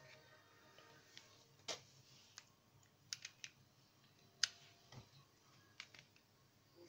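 Faint, scattered clicks and taps of a mini hot glue gun and paper being handled while lace trim is glued onto a paper envelope. About ten short, sharp clicks, the sharpest about halfway through.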